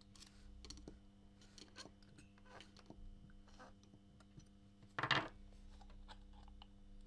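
Faint metallic clicks and ticks of a hex key turning screws in the aluminium housing of a turbo-molecular pump, with one louder, brief scraping clatter about five seconds in as the pump is handled and lifted.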